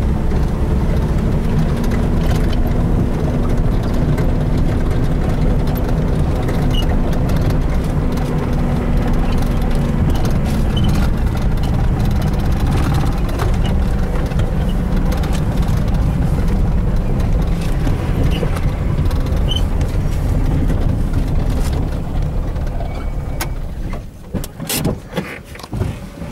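A vehicle's engine and tyres on a dirt road, heard from inside the cabin as a loud, steady low drone. Near the end the drone falls away and a few scattered knocks are heard.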